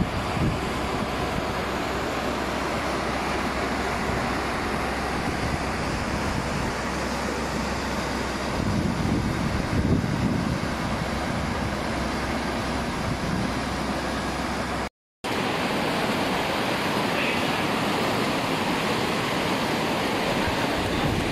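A river in flood after heavy rain, its churning brown water rushing steadily. Wind buffets the microphone at times, and the sound cuts out for a moment about 15 seconds in.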